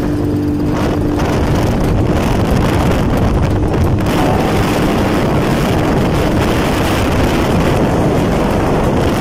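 A motorcycle on the move: loud, steady wind rushing on the microphone over the engine's running hum.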